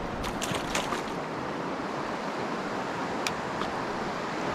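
Steady rush of a shallow river running over cobbles. A few short sharp clicks in the first second and one more a little after three seconds.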